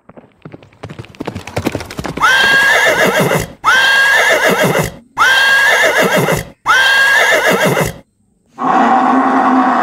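Horse hooves clip-clopping in a quickening run of beats, then a horse neighing four times, the same whinny repeated with short gaps, each call rising and then wavering. Near the end a lower, noisier sound starts.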